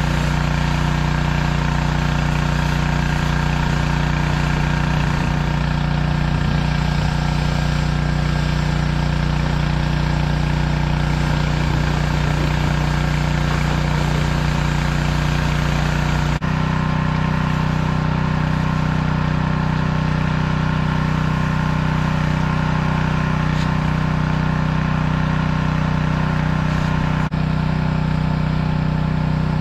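Pressure washer running steadily during equipment washing: a constant engine drone with a hiss of spray over it. The tone shifts abruptly about halfway through and again near the end.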